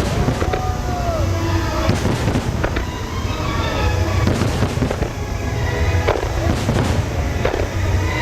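Aerial fireworks going off in rapid succession: repeated sharp bangs and crackling over a continuous low rumble.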